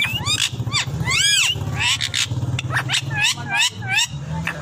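Caged parakeets screeching, a rapid series of short, rising-and-falling calls, over a low steady hum.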